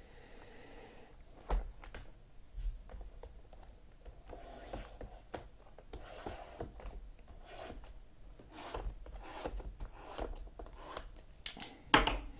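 Trading-card packs being opened and handled: wrappers tearing and crinkling, cards sliding and tapping against each other, with scattered light knocks and a sharper knock near the end.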